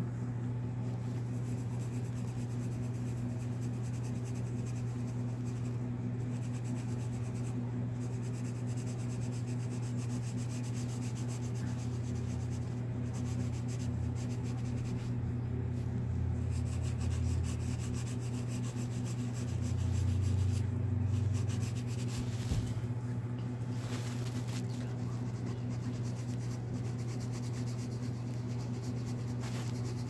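No. 2 graphite pencil rubbing and scratching on paper in quick shading strokes, over a steady low hum.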